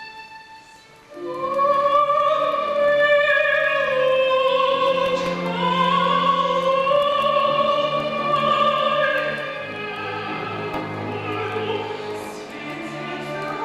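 Mezzo-soprano singing long, sustained notes over a chamber orchestra, entering loudly about a second in after a quiet held chord.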